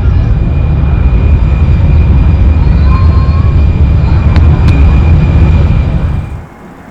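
Jet airliner's engines running loud and close as it passes, a heavy low rumble with a faint steady whine. It cuts off suddenly about six seconds in, leaving a much quieter background.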